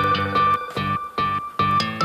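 Background music: plucked, guitar-like notes over a steady, quick beat.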